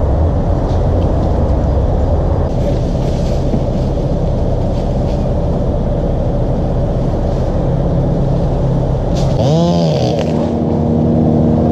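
An engine running steadily with a low rumble, briefly rising and falling in pitch about nine and a half seconds in.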